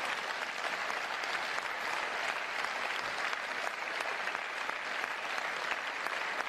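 Large audience applauding, many people clapping at once in a steady, dense patter.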